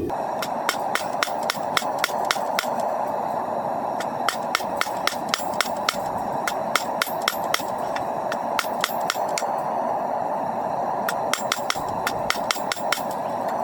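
Hand hammer striking hot coil-spring steel on an anvil, drawing out the stock: runs of quick ringing blows, about three or four a second, with short pauses between runs, over a steady rushing noise.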